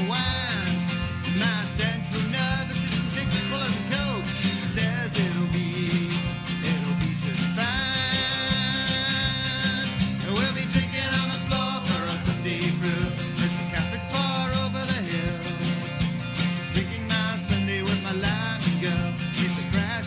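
Country-style band recording with guitars, bass and drums playing a song at a steady beat.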